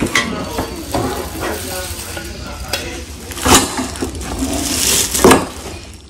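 Clear plastic wrap crinkling and rustling as it is handled against a cardboard box, with two louder crackles about three and a half and five seconds in.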